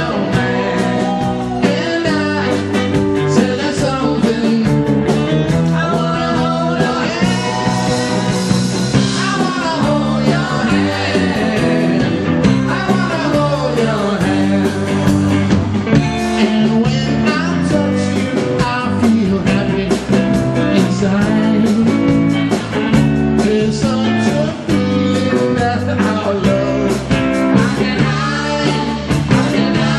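Live rock band playing: electric bass, electric guitar and drum kit, with singing.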